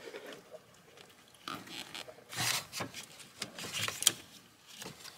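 Plastic brake booster vacuum line being pushed down into its fitting by hand: a few short, irregular rubbing and clicking noises of plastic tube and rubber against the engine bay parts.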